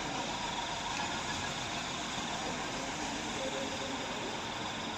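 Steady running of a vehicle engine, an even noise with no distinct knocks or changes.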